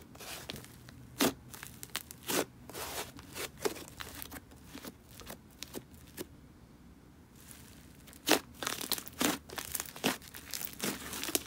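Hands kneading, poking and stretching a thick, fluffy brown clay slime, giving sticky crackles and sharp pops. The sound dies down to gentle pressing around six to seven seconds in, then loud pops start again.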